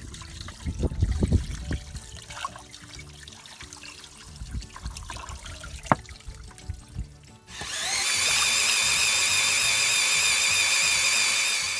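Water poured from a plastic bottle trickling and splashing into the open cylinders of a car engine with its head removed, with a few bumps and one sharp click. About two-thirds of the way through, a cordless screwdriver starts and runs with a steady, high whine as it turns the engine over by the crankshaft pulley.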